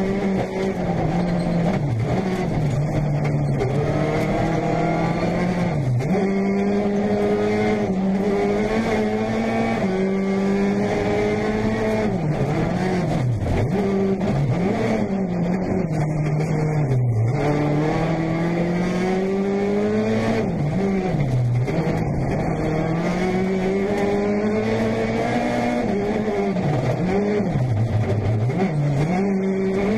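Peugeot 208 T16 R5 rally car's turbocharged four-cylinder engine, heard from inside the cockpit at stage pace. The revs climb and drop sharply over and over with quick gear changes and lifts off the throttle.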